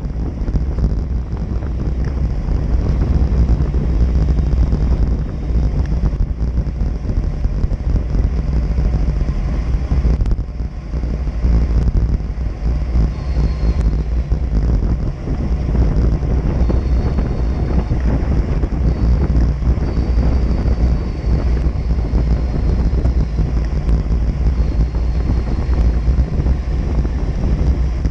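Loud, steady wind buffeting on a GoPro's microphone from the speed of a road bicycle descending a mountain road, with a brief lull about ten seconds in.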